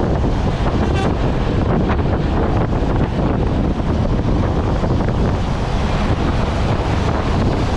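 Steady wind buffeting the microphone over the low rumble of a moving vehicle; no horn sounds.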